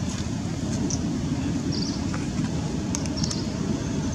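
Steady low rumbling noise, with a few short, high chirps about two and three seconds in.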